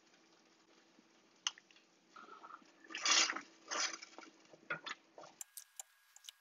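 A spoon stirring thick tomato sauce in a stainless steel pan, with several separate strokes from about two seconds in, the loudest about three seconds in.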